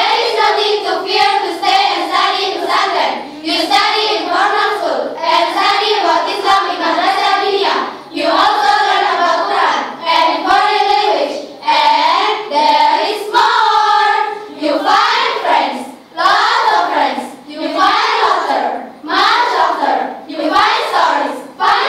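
A group of teenage schoolgirls singing a lively song together in unison, unaccompanied, in short repeated phrases.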